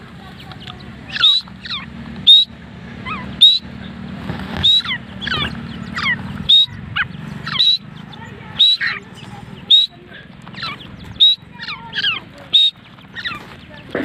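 Grey francolins calling: loud, sharp high notes repeated about once a second, each with quick falling notes below it.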